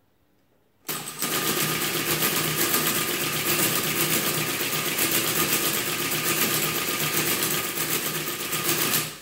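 Friden ACG electric mechanical calculator running through a division, a rapid, even mechanical clatter of its cycling gears as the carriage shifts. It starts about a second in and stops shortly before the end. The answer comes out wrong, which the owner puts down to sticky columns or carry mechanism.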